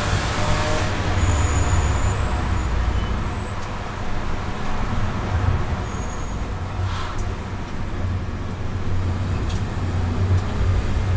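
Cabin sound of a BMW 325i's straight-six engine with road noise as the car slows hard from high revs. The engine drops from near 5,800 rpm, with a downshift and a click about seven seconds in.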